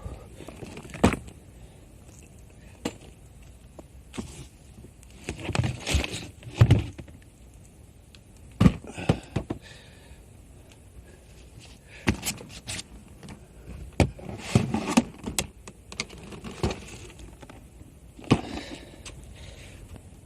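Irregular knocks, clicks and scraping of things being handled, in scattered clusters with a few sharp louder clacks.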